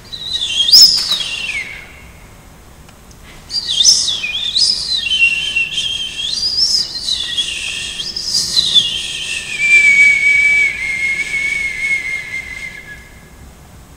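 High, whistle-like electronic-sounding tones from a sound-art video played over loudspeakers, with a fainter second tone beneath. A quick rising-and-falling sweep comes first. After a short gap a wavering, gliding tone sets in, settles into a steady, slowly falling pitch and stops shortly before the end.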